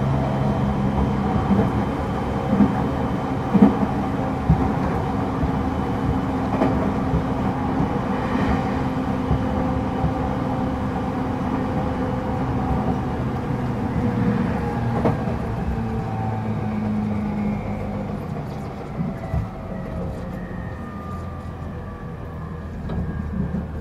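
TWR 70-000 series electric train running, heard from inside the car: wheel and rail noise under the hum of the motors and the Mitsubishi GTO-VVVF inverter, with a few knocks in the first seconds. In the second half the inverter and motor tones glide down in pitch and the sound grows quieter as the train slows.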